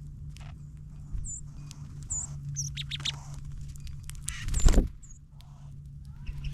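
Small songbirds feeding on seed close to the microphone. Short, high chip notes come about five times over small pecking and cracking clicks. A louder brief rustle comes about four and a half seconds in, with a steady low hum underneath.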